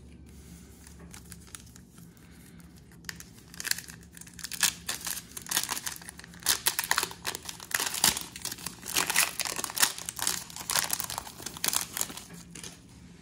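Foil wrapper of a trading-card pack being torn open and crinkled by hand. The crackling starts about three seconds in and runs dense and uneven until near the end.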